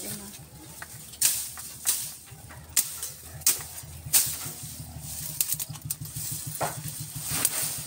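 Machete chopping into dense brush and vines: about seven sharp, irregular chops amid rustling leaves and snapping stems, over a steady low drone.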